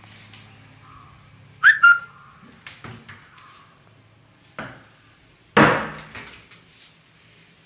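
Wardrobe doors being handled: a short, high, gliding squeak, then a few light clicks and a loud knock with a brief ring, as of a door swung against its frame.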